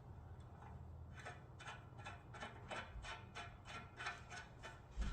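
Ratchet wrench clicking in a steady run of short clicks, about three to four a second, starting about a second in, as a nut on a caster foot's mounting bolt is run down.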